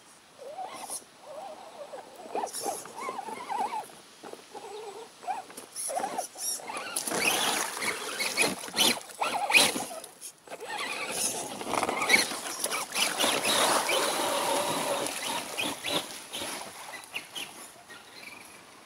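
Radio-controlled off-road truck driving through mud close by: its motor runs and its tyres spin and fling wet mud, in two loud stretches around the middle with a short break between.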